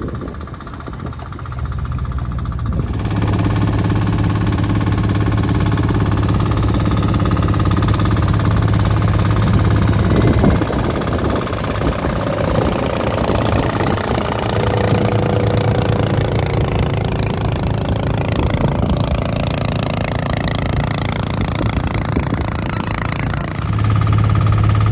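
A motor engine running steadily with a rushing noise over it, which grows louder about three seconds in.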